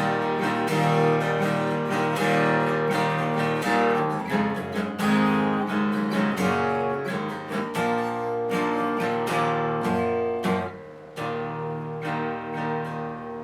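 Copy Taylor 314ce steel-string acoustic guitar strummed in fast, hard chords, with a brief drop about eleven seconds in before softer ringing chords. It is strung low-action and tuned down a half step, and its bass has a rough, jangly edge that the player says is the guitar's natural character, not fret buzz.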